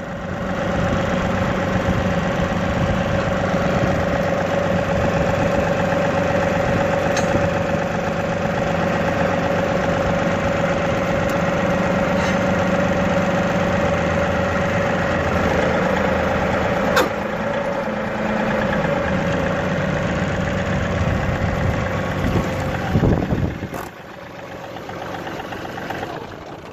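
John Deere 2038R compact tractor's three-cylinder diesel engine running steadily as the tractor pulls slowly away in low range, with a few sharp clicks along the way. About 23 seconds in the engine sound drops suddenly and becomes much quieter.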